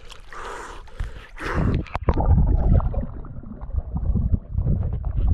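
Moving, splashing river water at the surface. About two seconds in, the microphone goes under, and the sound turns to a muffled underwater rumble with many dull knocks and scrapes.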